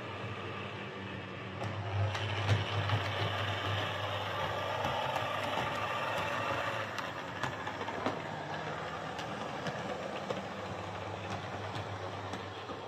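Hornby Class 142 Pacer OO gauge model railbus running on a layout: its single small motor whirring steadily and the wheels rolling on the track, with scattered clicks. It is louder for a few seconds from about two seconds in. The unit has just been repaired, with its broken coupling contact wires fixed, wheels and pickups cleaned and the drive lubricated.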